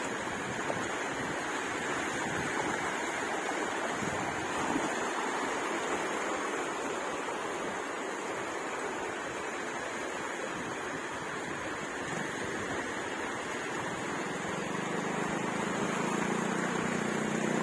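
Small waves washing in shallow surf, a steady rushing noise. A low steady hum joins near the end.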